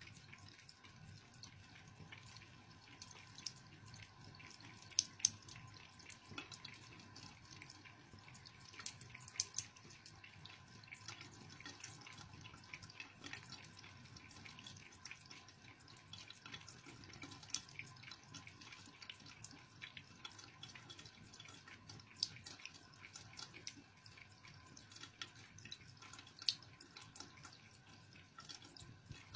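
Thin stream of tap water trickling into a bathroom sink while a cat laps at it, making faint, irregular drips and splashes, a few of them louder.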